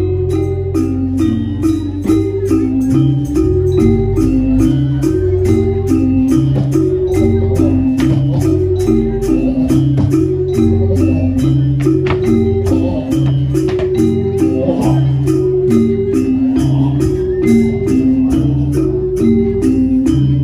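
Gamelan music accompanying a masked dance: a metallophone melody loops in steady stepwise phrases over repeated low drum beats, with a high metallic ticking keeping an even beat.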